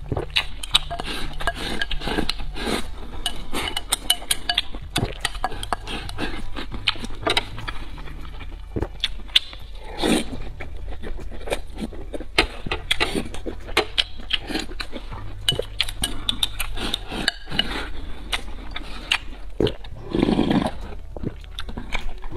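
Close-up eating sounds of a person slurping and sucking sauce from a bowl and from the rim of a metal tray, with lip smacks and the occasional clink of chopsticks on the tray. A louder, longer slurp comes near the end.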